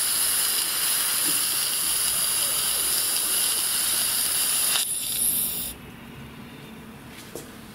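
Steam hissing steadily from a handmade brass V-twin model steam engine, then cutting off abruptly in two steps about five seconds in.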